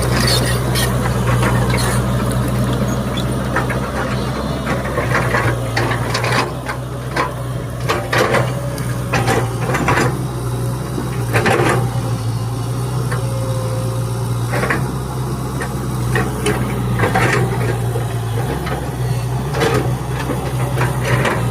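The diesel engine of an XCMG 140 excavator running at a steady speed, with scattered clanks and rattles over it.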